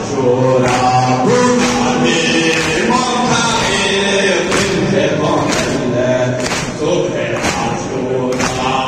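Devotional singing: voices holding long, slowly moving notes over sharp percussion strokes about once a second.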